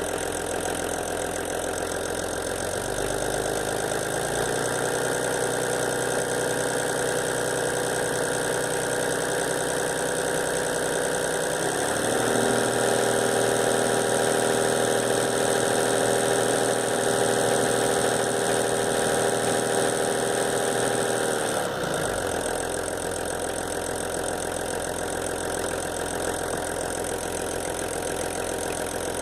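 VW LT 28 van engine running with a noise the owner puts down to the vacuum pump. It idles, is brought up to a slightly higher steady speed a few seconds in, higher again about twelve seconds in, then drops back to idle a little after twenty seconds.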